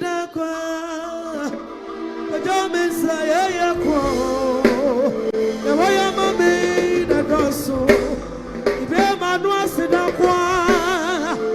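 A solo voice singing a slow worship song with heavy vibrato over sustained keyboard chords.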